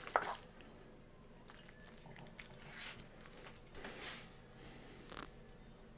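A serving spoon scrapes and knocks against a cast-iron pot once, sharply, just after the start as fried rice is dished out, followed by faint small handling sounds of food and utensils.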